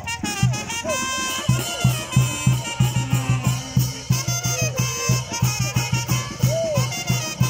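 Small brass band playing lively Latin dance music over a steady bass beat.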